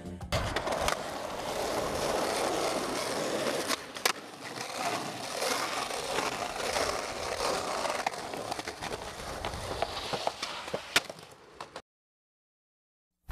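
Skateboard wheels rolling over rough asphalt, broken by several sharp clacks of the board popping and landing, the loudest near the end. Then the sound cuts off suddenly.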